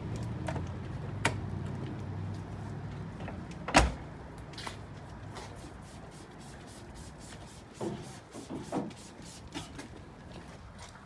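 A vehicle door shuts with one sharp knock about four seconds in. Lighter clicks and knocks come before and after it, and a low hum fades out over the first few seconds.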